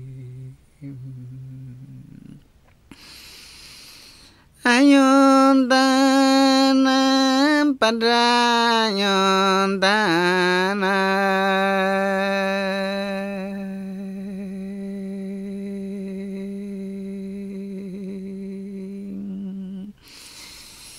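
A man singing an icaro, an Amazonian shaman's sacred healing song, in long held notes. A low note comes first, then a short pause, then a higher note held a few seconds. It slides down to a lower note that is held for about ten seconds, softening partway, before a break near the end.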